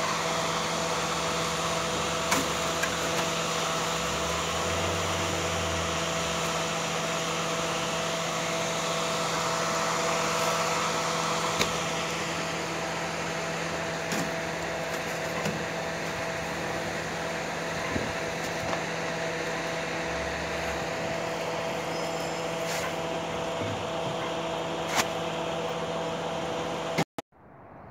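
Truck-mounted roofing conveyor running: the truck's engine and belt conveyor make a steady mechanical hum, with a few sharp clicks, and the sound cuts off suddenly near the end.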